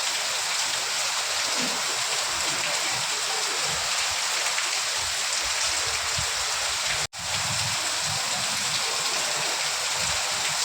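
Steady rain falling, an even hiss with no gaps. It cuts out for a split second about seven seconds in.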